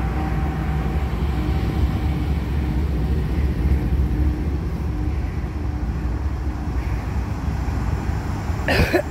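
Norfolk Southern freight train's lead diesel-electric locomotives, a GE AC44C6M and GE Dash 9-40CWs, passing close by with their engines running in a steady low rumble.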